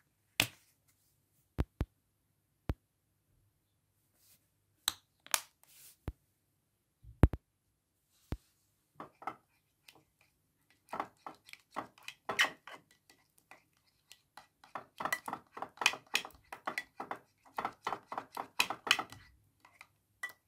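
A silicone spoon stirring and scraping a thick, sticky gel mixture in a small glass dish, in quick repeated wet strokes that grow busier toward the end. It is preceded by a few separate sharp clicks and taps in the first several seconds.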